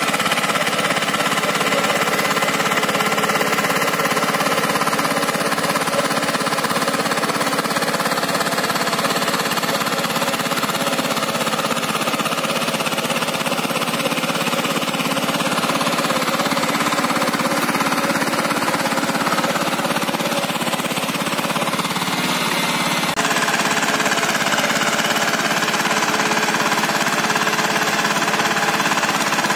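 Walk-behind power tiller's single-cylinder diesel engine running steadily under load while it tills the soil.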